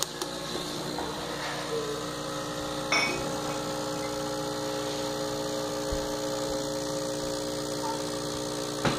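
Francis Francis X3 espresso machine's vibratory pump buzzing steadily while it pulls a shot. A click comes as the brew button is pressed, and another about three seconds in.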